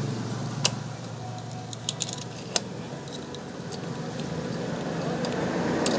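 A few light metallic clicks and clinks of engine parts and hand tools being handled, over a steady background hum.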